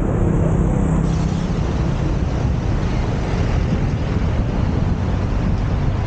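Steady low rumbling noise, with wind buffeting the microphone; a low engine-like hum shows in the first second or so and then fades into the noise.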